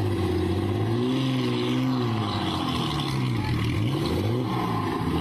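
An engine running with its pitch rising, then falling and wavering as its speed changes.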